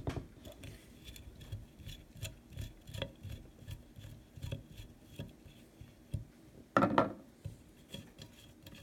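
Screwdriver backing a screw out of a Marlin 336 lever-action rifle, with metal parts being handled: a run of small metallic clicks and scrapes, and a louder clatter about seven seconds in.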